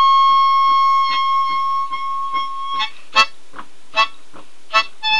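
Harmonica in the key of A. It plays one long held high note, then short chordal puffs about once every 0.8 s near the end, over a faint steady tapping beat of about two and a half taps a second.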